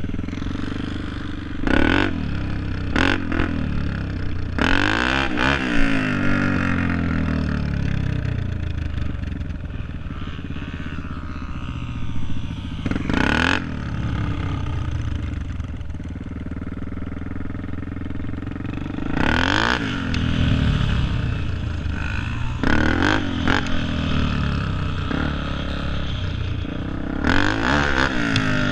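Dirt bike engine running close to the microphone, revving up and down again and again as the bike rides around. Several short surges of wind-like noise break over it.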